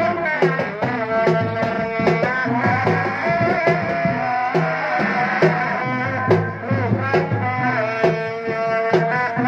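Sundanese reak music: a pitched melody that bends and ornaments continuously over regular drum strokes.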